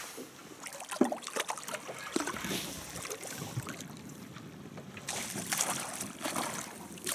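Hooked pike splashing at the water's surface as it is reeled in to the boat, loudest over the last couple of seconds, after a sharp knock about a second in.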